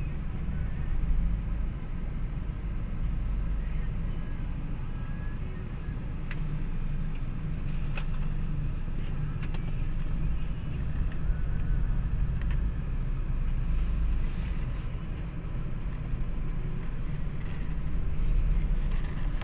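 Steady low rumble of motor vehicles on a street, with faint voices now and then.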